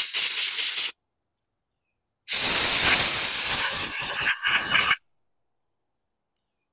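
Pressurised spray hissing in short blasts into a small-engine carburetor to clear its jets and passages: one burst ends about a second in, then a longer one with two brief breaks stops about five seconds in.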